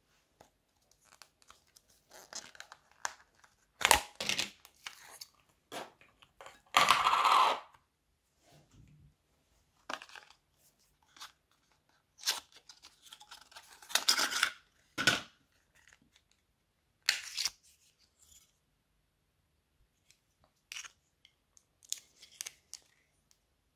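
Hands unpacking a small cardboard box of brow styling soap: scattered sharp clicks and tearing and rustling of the packaging, with one longer rip a few seconds in. Near the end there are small scrapes as a metal spoon scoops soap out of its tin.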